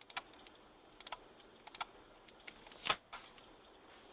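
Faint, scattered clicks of a computer keyboard, about half a dozen irregular taps, the loudest near three seconds in.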